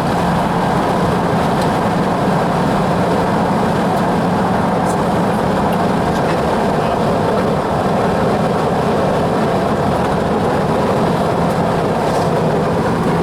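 Steady rumble of a vehicle driving at speed, heard from inside the cabin: tyre and engine noise.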